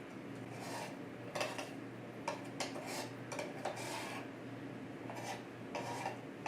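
Kitchenware being handled: a run of irregular light clinks and short scrapes of metal utensils against dishes, some ringing briefly, over a steady low hum.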